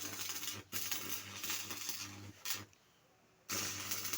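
Stick (arc) welding with a mains transformer welder: the arc crackles over a steady low hum in bursts, breaking off briefly about half a second in, stopping just after two seconds, and striking again about three and a half seconds in as the weld on the chaff cutter's broken frame goes on.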